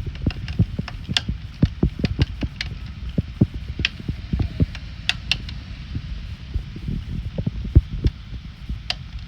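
Hurricane rain: a steady hiss of rainfall with heavy drops knocking irregularly on a hard surface, a few knocks a second.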